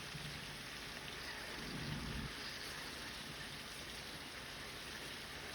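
Halved grape tomatoes and spinach sizzling in a frying pan, a faint steady hiss.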